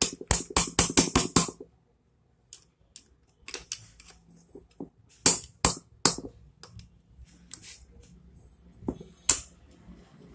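Small steel parts clicking and clinking against a motorcycle cylinder head while the rocker-pin lock plate is fitted: a quick run of about eight clicks at the start, then scattered single clicks.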